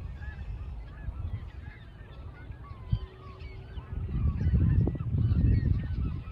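A flock of geese calling, many short honks overlapping, over a low rumble that grows louder about four seconds in.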